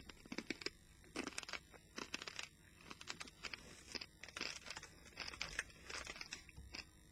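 Close-up crunching and chewing of hard, crispy pork scratchings in the mouth, with irregular crackling bites throughout.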